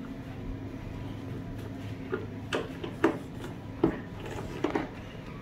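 Light, scattered clicks and taps of a metal Allen key, bolt and washer being handled and turned into the particleboard panel of a cube storage shelf, about half a dozen over a few seconds, over a faint steady hum.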